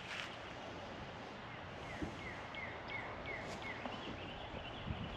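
Outdoor ambience: a bird calls a quick run of about five short falling notes midway, over a steady background hiss, with a few soft thumps near the end.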